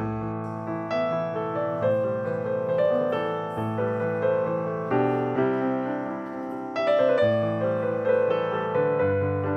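Background piano music: a slow, gentle melody with notes struck about once a second.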